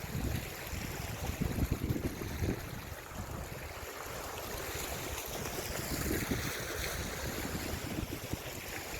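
Wind gusting against the microphone, irregular low buffeting over a steady rushing background.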